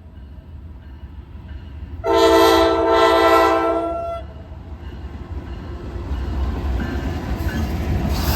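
Freight locomotive air horn sounding one chord-like blast of about two seconds, starting about two seconds in, over a low diesel rumble. After it, the train's running noise builds steadily as it comes closer.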